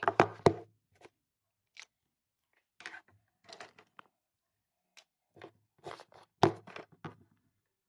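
Crunching, clicking and knocking close to the microphone in irregular clusters: a loud group at the start, scattered clicks in the middle, and the loudest knock about six and a half seconds in. It is typical of a phone being handled with the lens covered.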